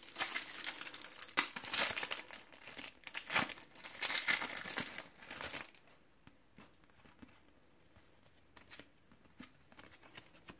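Shiny plastic-foil wrapper of a Panini World Cup 2018 trading-card pack being crinkled and torn open, with dense crackling for about six seconds. After that only a few faint light ticks as the cards are handled.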